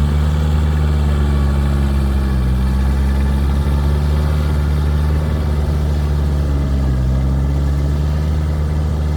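Kioti DK4510 tractor's diesel engine running steadily, its pitch dipping briefly twice.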